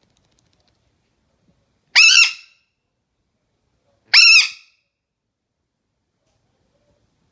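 Burrowing parrot (loro barranquero) giving two loud screeching calls about two seconds apart, each lasting about half a second.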